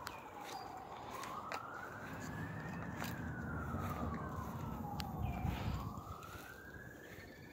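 Emergency vehicle siren in a slow wail, its pitch rising and falling in long sweeps of about two seconds each way. A low rumble swells through the middle and is loudest a little past halfway, with a few light clicks scattered through.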